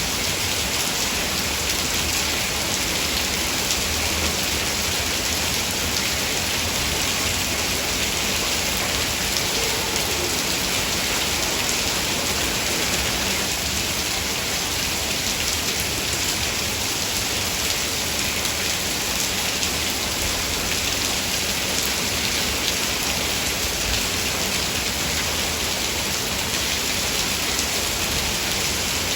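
Heavy rain falling as a steady, even hiss, with no distinct drops or thunder standing out.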